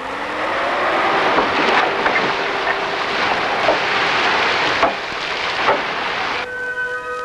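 Heavy construction machinery working: a machine engine running in a noisy drone, with scattered sharp metal clanks. Near the end it cuts off and music takes over.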